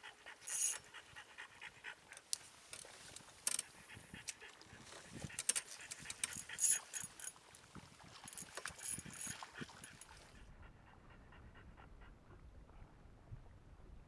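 Clicks and rattles of a spinning reel being wound and handled. After about ten seconds these give way to a French bulldog panting rhythmically.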